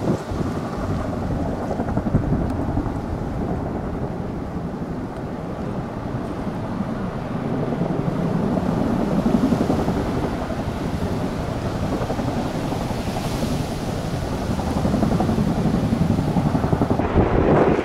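Tandem-rotor Chinook helicopter hovering low over a lake while it draws water up its snorkel hose: a steady, heavy rotor rumble with the rush of downwash over the water and wind buffeting the microphone, swelling slightly around the middle and again near the end.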